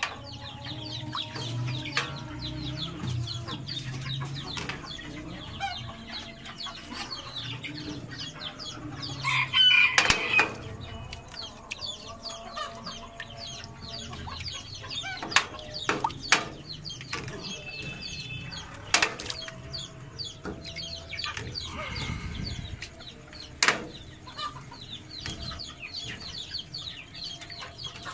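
Chickens clucking steadily in the background, with sharp knocks and clicks from the air cooler and float valve fitting being handled during the fitting; the loudest knock is about ten seconds in.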